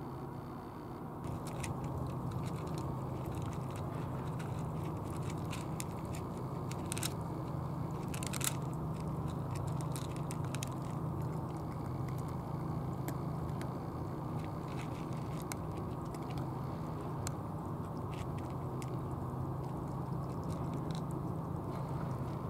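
Cats crunching dry kibble, many quick crackling chews starting about a second in, over a steady low background rumble.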